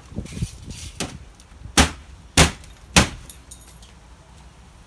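Hard knocks and clinks on a smashed flatscreen TV's broken glass panel: a run of lighter knocks and rattles, then three sharp knocks about half a second apart.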